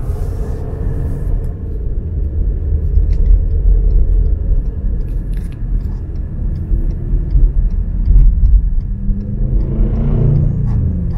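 City street traffic under a heavy, uneven low rumble, with a vehicle passing and swelling up about nine seconds in.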